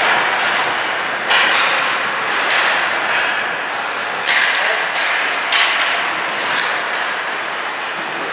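Ice hockey play on a rink: a steady hiss of skates on ice, broken by four sharp knocks of sticks and puck, about a second, three, four and five seconds in.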